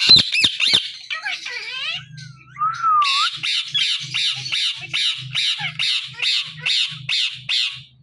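Indian ringneck parakeets squawking: a burst of loud harsh calls at the start, then from about three seconds in a fast, regular run of short screeching calls, about three a second.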